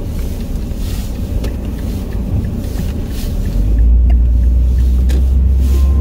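Car engine and road noise heard from inside the cabin: a steady low rumble that grows louder about four seconds in.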